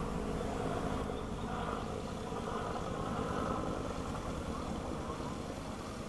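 Steady low engine rumble.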